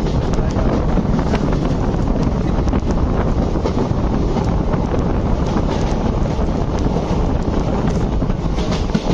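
Wind rushing over the microphone at the open door of a moving ICF passenger coach, over the steady running rumble of the train, with a few faint clicks.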